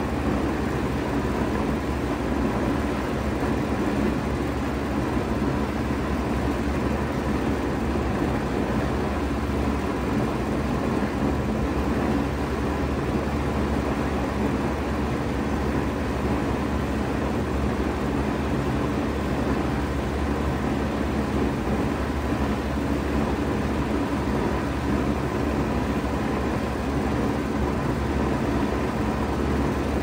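A 2016 Bard 4-ton wall-hung heat pump running steadily in heat mode: an even compressor hum under the noise of the fan moving air, with a faint steady whine.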